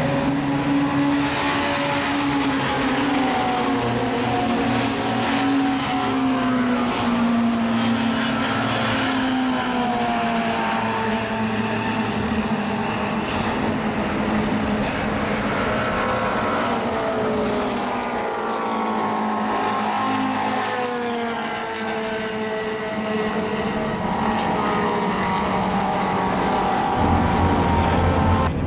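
Several classic Mini racing cars' engines at high revs as a group of cars runs past, several engine notes at once. Their pitch slides down and up with gear changes and as the cars go by.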